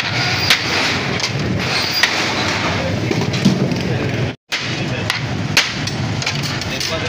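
Metal ladle scraping through rice and knocking against the rim of a large aluminium cooking pot, sharp clinks every second or so over a steady street-stall hubbub. The sound drops out for a moment about four seconds in.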